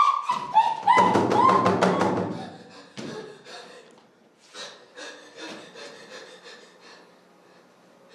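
A high, held wailing voice with a few short pitched notes over a rapid burst of drum-like knocks in the first two and a half seconds, then only faint scattered knocks and breaths.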